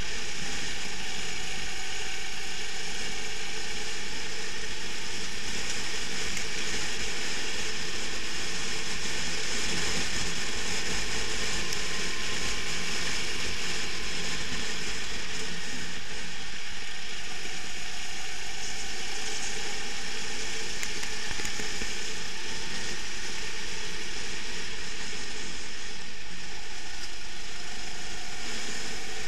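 Racing kart's engine running continuously at speed, heard close up from a camera mounted on the kart itself, a steady dense mechanical noise with no breaks.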